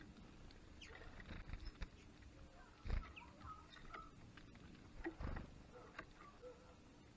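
Small birds at a garden feeder giving short, scattered chirps and calls, with two low thumps, the louder about three seconds in and another around five seconds in.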